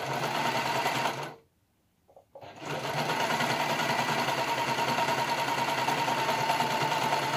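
An overlocker (serger) stitching a seam through layered knit fabric: a short run of about a second and a half, a pause of about a second, then a steady run for about five seconds that stops near the end.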